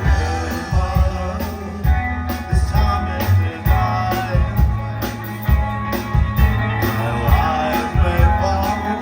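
Rock band playing live: a steady drum beat with bass and electric guitar.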